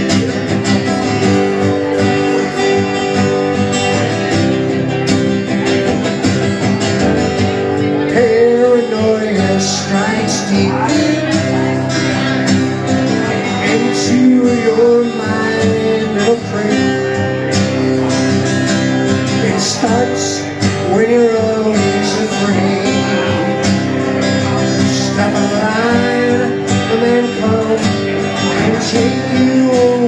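Two acoustic guitars played live, steady strumming of a country-folk song, with a melody line on top that bends and wavers in pitch from about eight seconds in.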